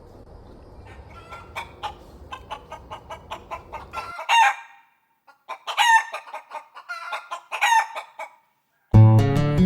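Chickens clucking in a quick run of short notes, broken by several louder, longer pitched calls. Acoustic guitar music starts near the end.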